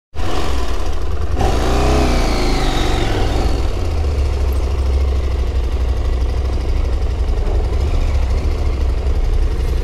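Adventure motorcycle engine pulling away at low speed, its revs rising and falling a second or two in, then running steadily as the bike rolls on.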